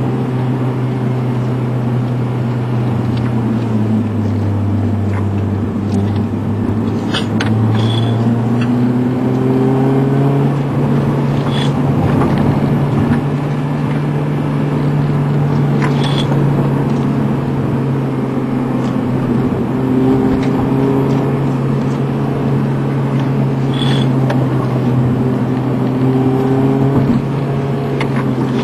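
Car engine and tyre noise heard from inside the cabin while driving steadily; the engine's hum drops in pitch about four seconds in as the car eases off, then climbs back up a few seconds later as it speeds up again. A few faint ticks are scattered through.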